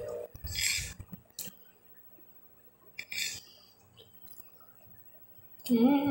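Eating sounds: a metal spoon clinking and scraping on a glass plate, with mouth noises in two short bursts. Near the end comes a short hummed voice sound, made with a full mouth.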